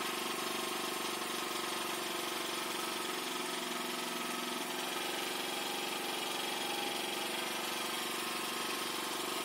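Small engine idling steadily, an even hum that does not change.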